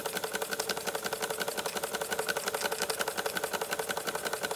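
Bing vertical toy steam engine running fast with its boiler-feed water pump in gear, a rapid, even mechanical beat. The added load of the pump is the sign that it is putting water into the boiler.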